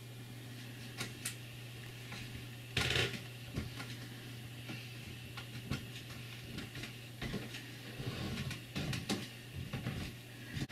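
Red fox cub moving about on a wooden slatted patio bench: scattered soft taps and scrapes of its feet on the wood, a brief louder rustle about three seconds in and a cluster of taps later on, over a steady low hum.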